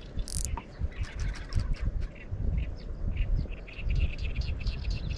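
Irregular low rumbling of wind and a sleeve brushing a body-worn camera's microphone, with small birds chirping throughout and a brief hiss about half a second in.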